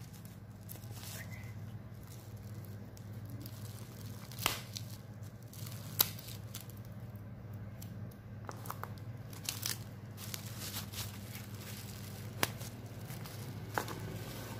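Plastic bubble wrap crinkling and rustling as it is pulled off a small card box, with scattered sharp crackles, the loudest about six seconds in, over a steady low hum.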